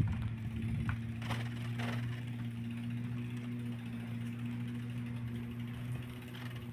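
Steady low mechanical hum from a two-wheeler being ridden, with a few light clicks about a second in.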